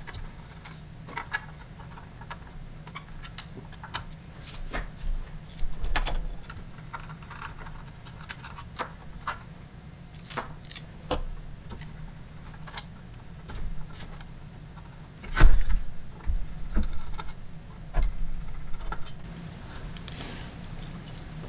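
Small clicks, clinks and knocks of hands and a screwdriver working loose screws and metal parts out of an LED light bar, with a louder knock about fifteen seconds in.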